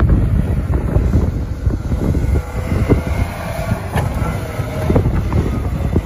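Wind buffeting the microphone over the low rumble of snowplow trucks working a snow-covered road, with a heavy truck's diesel engine running.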